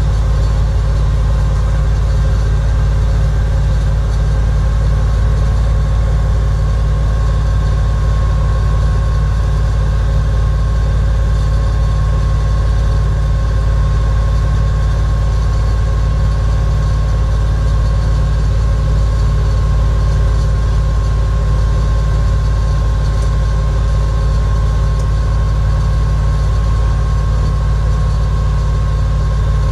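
The 1999 GMC C6500 truck's 7.4L V8 gas engine idling steadily, with a thin constant whine over the low engine note.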